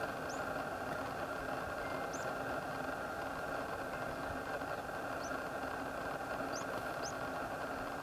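Steady drone of an idling car engine, with about five faint, short, high rising chirps of small birds scattered through it.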